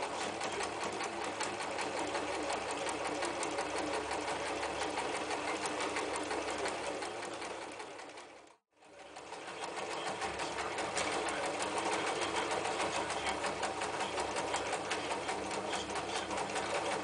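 Janome New Home 110 electric sewing machine running at speed, stitching through two and then four layers of leather. The sound cuts off abruptly a little past eight seconds in and starts again a moment later.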